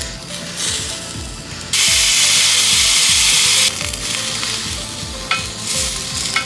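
Food sizzling on a grill over a wood stove: a loud, even hiss for about two seconds that starts and stops abruptly, over background music with a steady beat. A couple of faint clicks come near the end.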